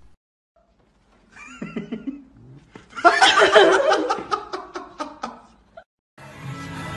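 Loud human laughter in quick repeated bursts, starting about three seconds in and fading out, with a shorter wavering vocal sound before it. Music starts near the end.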